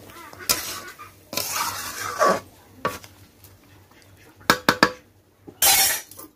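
Metal spatula scraping and stirring chopped white pumpkin in a metal kadai, in uneven strokes. There is a quick run of sharp, ringing clinks of the spatula on the pan about four and a half seconds in, and a loud scrape near the end.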